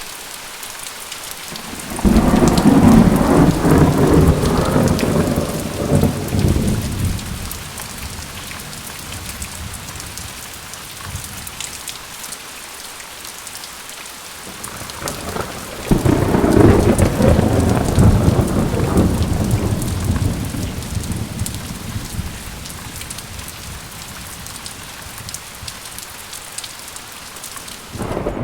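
Steady rain falling, with two loud rolls of thunder: the first about two seconds in and the second about halfway through. Each starts suddenly and rumbles away over several seconds.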